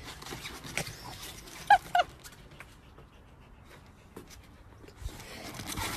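Small dog giving two short, high yips about a quarter second apart, with light scattered clicks of its claws on a metal ladder as it climbs.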